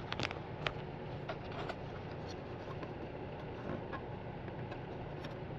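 Small sharp clicks and taps of a pick prying at a plastic windshield washer reservoir cap, most of them in the first two seconds, over a steady low hum.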